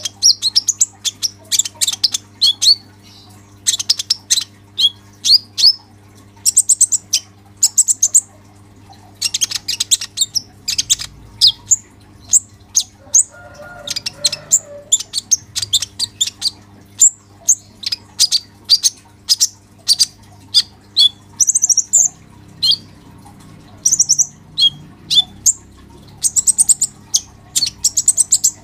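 Male kolibri ninja sunbird singing its chattering ngobra song: long runs of rapid, high-pitched chirps and trills, coming in bursts with only short breaks. A steady low electrical hum sits underneath.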